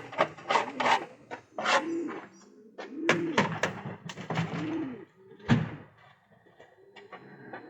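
Domestic pigeons cooing, a few low rising-and-falling coos, among scuffling and sharp clicks of the birds moving about; one louder knock about five and a half seconds in.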